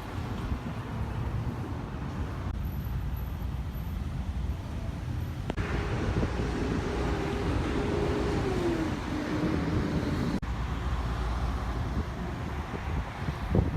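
Road traffic in several short spliced-together recordings, each a low rumble of vehicles. In one of them an engine note holds steady and then drops in pitch.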